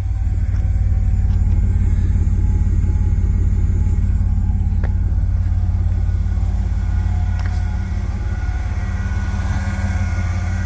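2003 Chevrolet Astro AWD's 4.3-litre V6 idling steadily, a constant low rumble.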